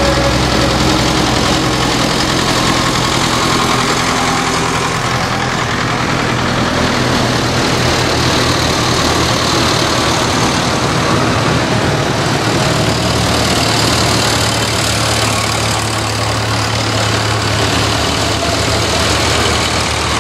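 Vintage tractors driving past one after another, their engines running steadily at low road speed.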